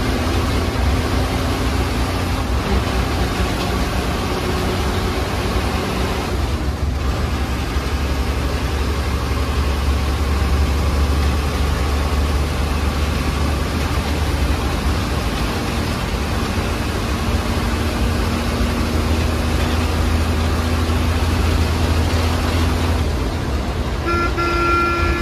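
MSRTC state-transport bus running at road speed, heard from inside the cab: a steady low engine drone with road noise. A horn sounds briefly near the end.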